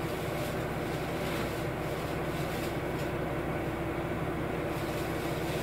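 Steady running hum of a KiHa 201 diesel railcar's engine, heard from inside the passenger car, holding an even pitch.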